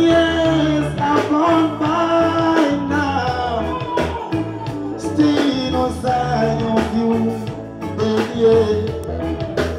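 Music: a singer holding long, sliding notes over a band with a repeating bass line.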